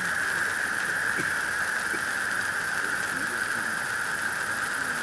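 Two ground fireworks fountains burning, spraying sparks with a steady, unbroken hiss that has a shrill edge.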